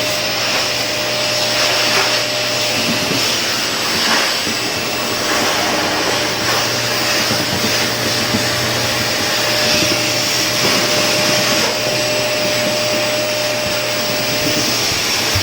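Household vacuum cleaner running steadily: a constant rushing motor noise with a steady whine through it.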